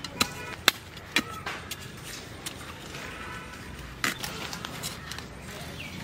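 A curved hand blade chopping into soil and taro roots at the base of a giant taro plant as the tuber is dug out: a few sharp, separate chops, three in the first second and a half and one more about four seconds in.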